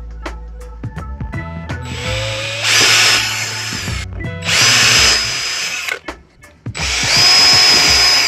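DeWalt cordless drill boring a hole into a wooden board: the motor runs at full speed three times, each run about a second and a half with a steady high whine, starting about two seconds in.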